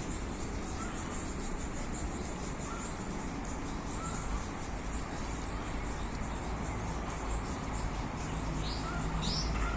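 Outdoor ambience: birds calling now and then, with a short falling call near the end, over a steady low rumble.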